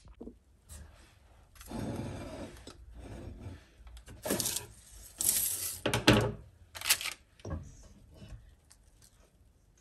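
Kitchen handling noises: a soft rustle, then several sharp knocks and clatters as a stainless steel mixing bowl and utensils are moved about on the counter.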